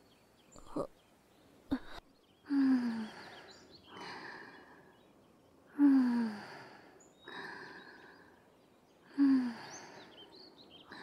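A young woman breathing slowly in her sleep: three long sighing out-breaths about three seconds apart, each with a soft falling hum in the voice, and quieter in-breaths between them. Two faint clicks come in the first two seconds.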